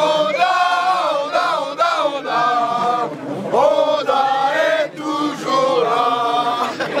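A crowd of fans chanting together in unison, many voices holding long, sliding notes with short breaks between phrases.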